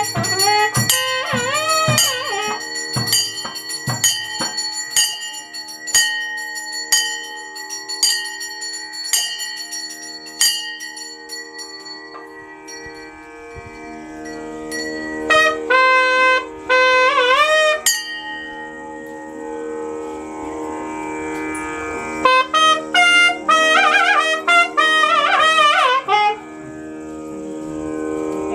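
A brass hand bell rung steadily, about twice a second, over Carnatic-style music: a wind instrument playing a gliding, ornamented melody in phrases above a steady drone. The bell stops about twelve seconds in while the melody and drone carry on.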